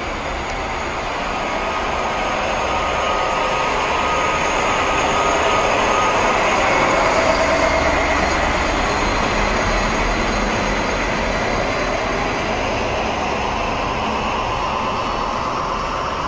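SNCF BB 67400 diesel locomotive hauling RRR coaches, passing at close range: its diesel engine running and its wheels rolling on the rails. The sound builds to its loudest about halfway through, as the locomotive goes by, then eases off as the coaches roll past.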